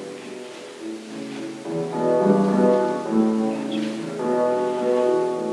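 Piano accordion playing a slow tune in held chords, quiet at first and fuller and louder from about two seconds in.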